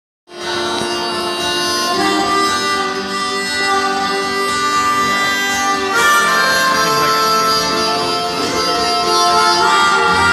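Harmonica playing a sustained, reedy melody over instrumental backing, opening a song.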